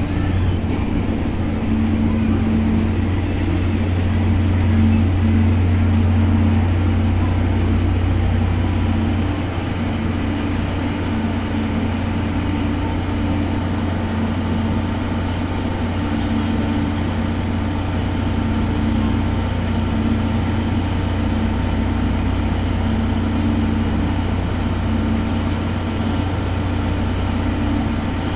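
Former JNR Series 12 passenger cars coming to a stop and standing at the platform, with the underfloor diesel generator engine that powers the coaches idling: a steady low drone with a fainter hum coming and going above it. The overall sound drops a little about nine seconds in.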